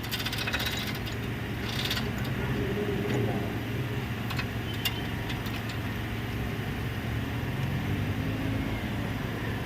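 Steady low hum of a running engine, with a few light clicks of tools or metal parts.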